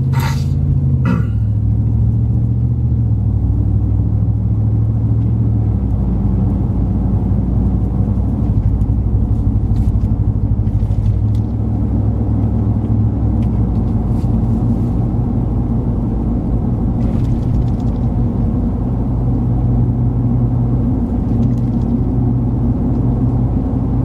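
Inside the cab of a moving 2020 Ram 1500 Rebel pickup: steady engine and road rumble, with the engine note shifting a few times.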